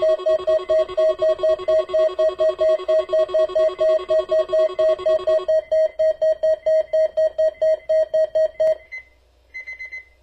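Alert-equipped weather radio sounding its alarm for the weekly test: a rapid beeping of about four beeps a second, with a steady higher tone under it for the first half. The beeping stops shortly before the end, followed by a few faint short beeps.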